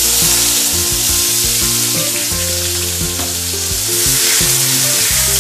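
Chopped tomatoes dropped into hot oil in a kadai, setting off a loud, steady sizzle that starts suddenly, with a steel spoon stirring them through the oil.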